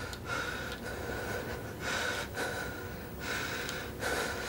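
A man breathing fast and heavily, in and out about twice a second.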